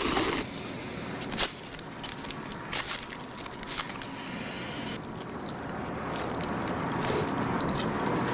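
Jajangmyeon noodles being slurped and eaten, a wet sucking sound that is loudest right at the start, with a few sharp clicks in the first few seconds.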